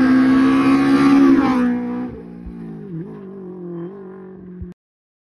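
Rally car passing at speed, its engine loud as it goes by, then dropping in pitch and fading as it pulls away, with a brief dip in pitch about three seconds in. The sound cuts off abruptly near the end.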